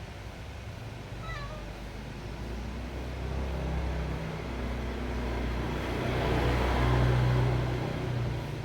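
Hungry domestic cat meowing for food, over a steady low rumble that swells to its loudest about six seconds in.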